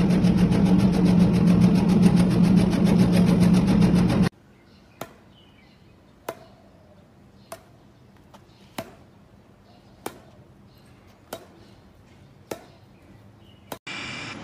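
Electric meat-slicing machine running with a steady motor hum and a fast, even high-pitched pulsing as its blade cuts meat into curled slices; the sound cuts off suddenly about four seconds in. After that, against low background noise, come sharp single taps about every second and a quarter.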